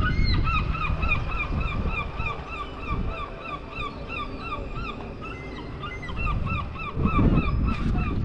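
A bird calling a rapid, steady series of short harsh notes, about four a second, over a low rumble that swells near the end.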